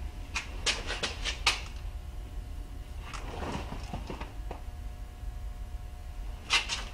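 Small metal clicks and taps of an Allen hex key turning a 1/8 inch set screw out of a Bridgeport milling machine's spindle. There is a quick run of clicks in the first second and a half, a softer scrape and rustle around the middle, and two sharp clicks near the end.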